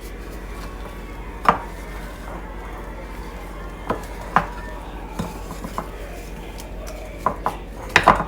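Kitchen utensils knocking and clinking against a mixing bowl during baking prep: single sharp knocks every second or so, with a quick cluster near the end, over a steady low hum.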